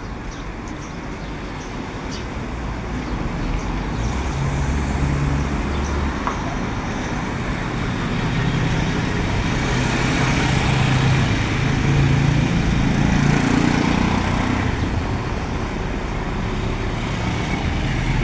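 Road traffic: motor vehicle engine and tyre noise swells to its loudest around the middle and eases slightly. A few faint bird chirps sound in the first second.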